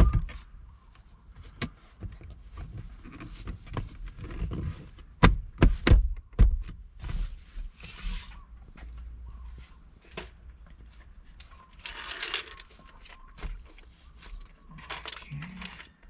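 Plastic center-console trim panels of a Nissan Frontier being handled and clipped into place: a string of clicks, knocks and rattles, with a few louder knocks about five to six seconds in, and short rustling now and then.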